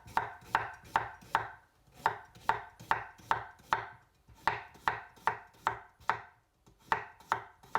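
Knife slicing a cucumber on a cutting board: a regular run of cuts, about two or three a second, pausing briefly about four seconds in and again shortly before the end.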